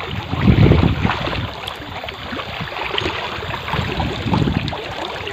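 Fast-flowing stream water rushing steadily, with heavier low rumbles about half a second in and again near four seconds.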